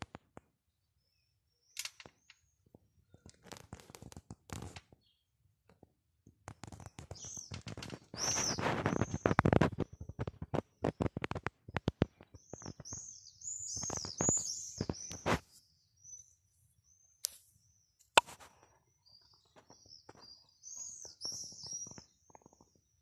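Small birds chirping in quick, repeated high notes, in several bouts. There is loud scuffing and clicking, loudest about eight to ten seconds in, and a couple of sharp clicks later on.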